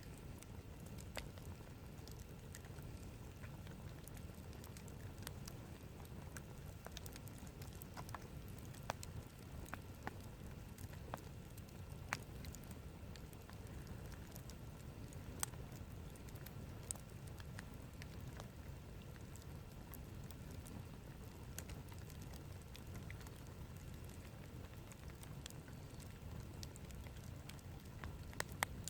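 Wood campfire crackling faintly, with irregular sharp pops and snaps scattered over a low steady rumble.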